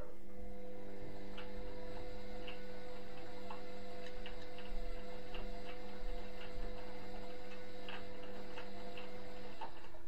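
Indesit front-loading washing machine turning its drum in the wash cycle: a steady motor hum with light, irregular ticks and knocks of the laundry tumbling, which stops shortly before the end as the drum pauses.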